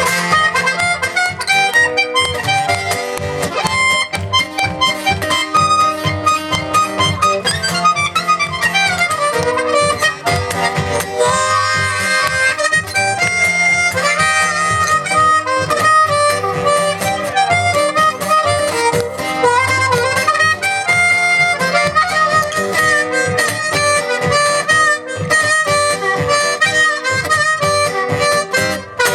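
Harmonica playing a melody over guitar accompaniment with a steady beat, an instrumental break in a song.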